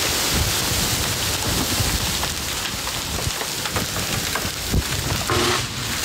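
Heavy storm downpour pounding steadily, with scattered sharp knocks of rain and hail striking close by. A short pitched sound is heard near the end.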